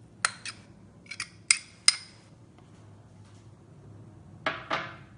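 Utensil clinking against a glass bowl about six times in quick succession while grated raw papaya is scraped in, followed by two duller knocks near the end.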